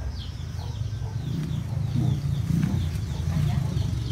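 Birds chirping: short high falling chirps repeated about two to three times a second, over a low rumbling noise that is loudest in the second half.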